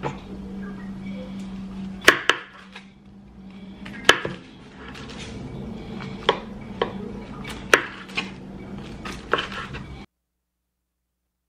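Dishes and metal utensils clattering: scattered sharp clinks and knocks, about nine in all, over a steady low hum. The sound cuts off abruptly to silence near the end.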